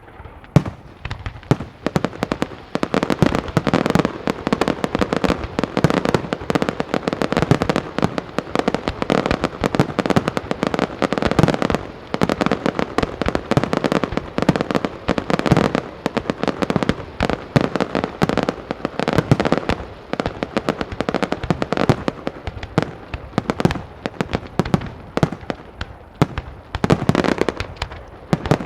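Professional display fireworks going off in rapid, continuous volleys: a dense mix of shell bursts and crackling, building about three seconds in and easing slightly in the later part before another surge near the end.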